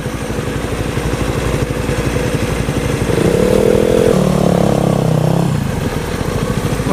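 Motorcycle engines riding at low speed: an evenly pulsing engine note that builds in loudness, with a stronger note rising in pitch from about three seconds in as the bikes pull away.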